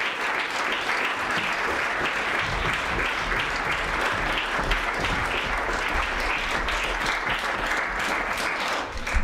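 Theatre audience applauding steadily at a curtain call, a dense patter of many hands clapping that starts to die away right at the end.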